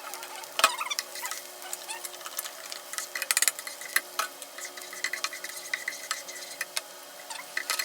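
A utensil clicking and scraping irregularly against a pan as food is stirred in hot oil, with a light sizzle underneath.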